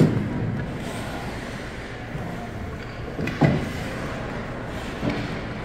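Three dull thuds over steady background noise: one right at the start, a strong one about three and a half seconds in, and a weaker one about five seconds in.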